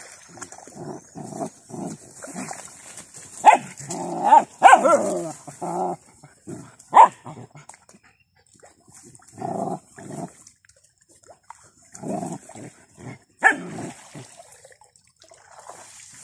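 Several puppies barking and whining in short bursts, loudest about four to five seconds in and again around seven seconds, with further bursts later, over a steady faint high hiss.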